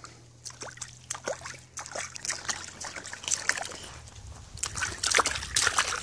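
Shallow water sloshing and splashing in a plastic wheelbarrow tray as a baby pats and paddles it with her hands: small, irregular splashes that grow busier and louder near the end.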